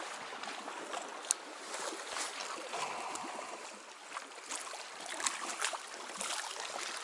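Small waves lapping against a concrete lakeshore: a steady, soft watery wash with a few light clicks.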